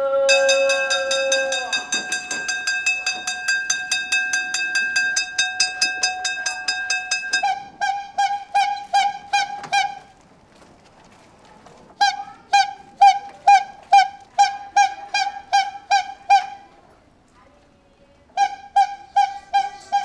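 A bread vendor's cart playing its electronic jingle: first a fast warbling tone for several seconds, then runs of quick high beeps, about six a second, broken by short pauses.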